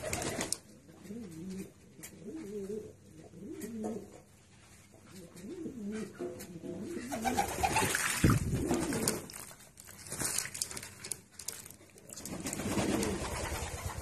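Pigeons cooing in low, wavering calls, then loud splashing about seven to nine seconds in as a pigeon bathes in a shallow basin of water.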